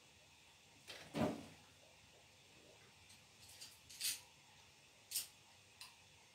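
A kitten playing out of sight, bumping and knocking about: a dull thump about a second in, then a few sharp clicks and taps over the next few seconds.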